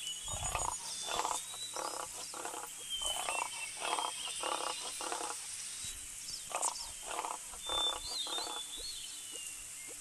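Frogs croaking: runs of short calls repeated in a quick, even rhythm, pausing briefly about halfway, with birds chirping.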